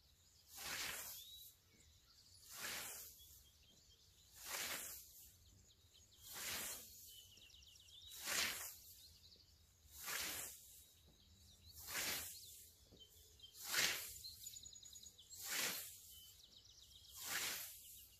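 Scythe with an 85 cm Falci 100 blade cutting through tall grass: a swish at each stroke, about ten strokes in a steady rhythm, one every couple of seconds.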